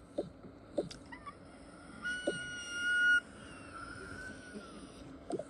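A steady high-pitched tone lasting about a second, two seconds in, followed by a fainter tone that glides up and back down, with a few faint clicks.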